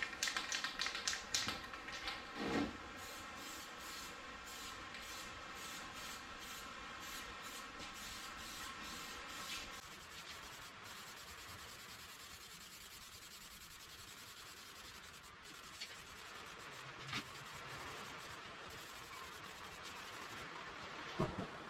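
Aerosol spray can of primer hissing as it is sprayed onto a steel fuel tank, pulsing in short strokes for the first half and then running as a smoother, steadier hiss. A steady humming tone sits under the hiss for about the first ten seconds.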